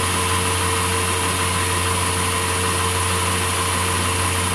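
Sawmill machinery running with a steady, unchanging hum.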